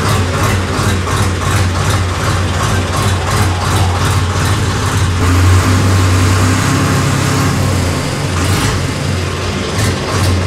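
Massey Ferguson 8055 Magnatrak tractor's diesel engine running at idle just after starting: a steady low hum with an even ticking clatter.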